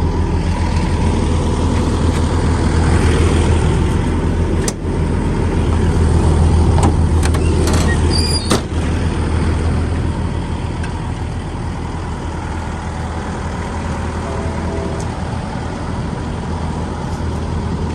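Hitachi ZX135US-3 excavator's diesel engine idling steadily, with a few sharp clicks or knocks between about five and nine seconds in.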